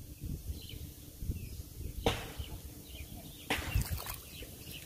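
Cast net being pulled out of shallow pond water, with splashing and dripping. Two sharp splashing swishes come about two seconds and three and a half seconds in, over low rustling from the net and rope being handled.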